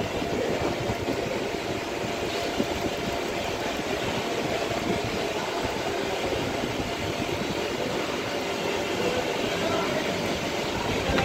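Steady machine noise running evenly throughout, with no clear rhythm or pitch.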